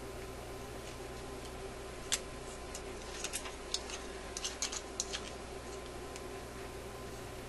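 Thin metal shim stock being handled and bent with pliers: a cluster of about a dozen sharp, light metallic clicks over roughly three seconds, starting about two seconds in, over a steady faint hum.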